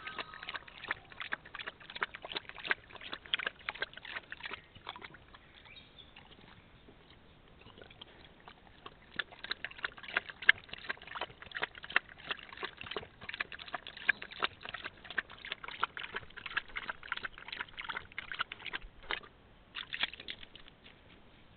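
Dingo lapping water from a shallow puddle: a quick run of wet clicks that lulls for a few seconds near the middle, resumes, and stops shortly before the end.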